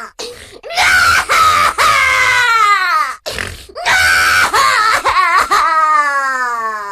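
Cartoon baby crying sound effect: long wailing cries that slide down in pitch, about three in a row, with a short wobbling sob between them about five seconds in.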